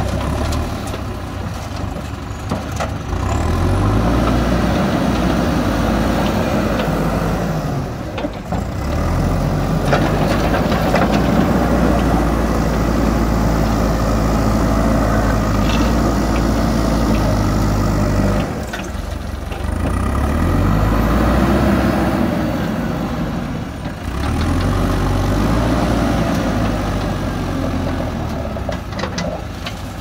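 JCB 3DX backhoe loader's diesel engine running under load as it works the front loader, revving up and easing back several times.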